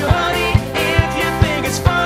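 A live pop-rock band playing: a drum kit keeps a steady beat of about two hits a second under electric guitar and keyboard, with a male lead vocal on top.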